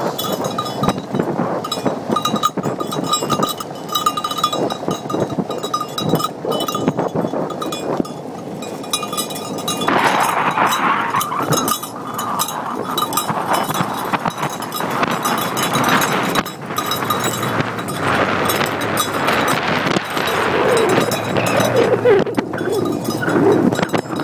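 A husky team pulling an ATV along a dirt track: the rolling ATV rattles, and metal clinks and rings again and again, bell-like, through about the first eight seconds.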